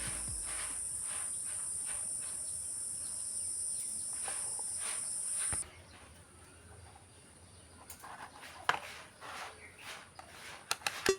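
A steady high-pitched hiss that cuts off suddenly about halfway through, then scattered faint clicks and taps.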